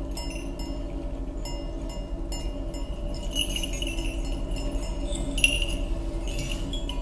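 Small cone-shaped metal bells on a dancer's costume jingling and tinkling in irregular clusters, each clink ringing on, growing busier in the second half with the loudest jingle about five and a half seconds in. A soft, steady low drone sits underneath.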